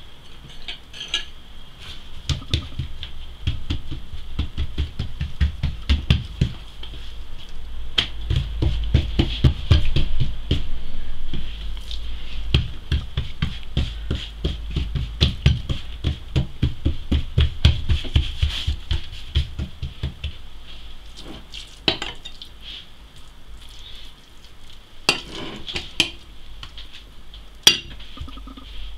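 Hands quickly patting and pressing a long strip of msemen dough flat against a wooden countertop, a fast run of soft slaps that eases off about two-thirds of the way through. Near the end a few sharper clicks and scrapes of a metal spoon in a ceramic bowl as the meat filling is scooped out.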